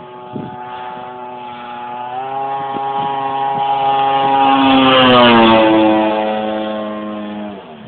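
Engine of a 28%-scale Extra radio-controlled model airplane turning a homemade propeller during a low flyby. The pitch steps up about two seconds in, the sound peaks and slides down in pitch as the plane passes at about five seconds, and it drops lower and quieter near the end.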